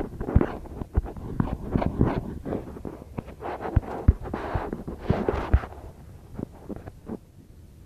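Irregular knocks, taps and rustling of things being handled close to the microphone, thinning out near the end.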